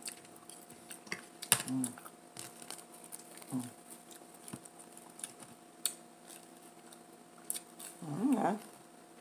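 Close-up eating sounds: chewing with wet mouth clicks and lip smacks. There are a few short hummed "mm"s, and a longer wavering "mmm" near the end.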